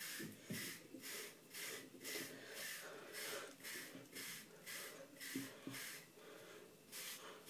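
Bristle hair brush stroking through short hair, a faint scratchy swish about twice a second in a steady rhythm.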